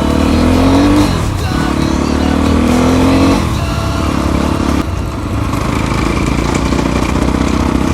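Crossfire XZ250RR dirt bike's engine pulling away, its pitch rising twice as it revs up through the gears, then running steadily.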